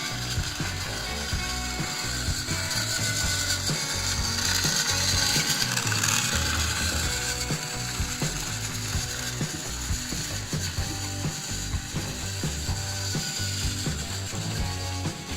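Battery-powered toy train's motor and plastic gears running, a steady whir with rapid clicking of the gear teeth.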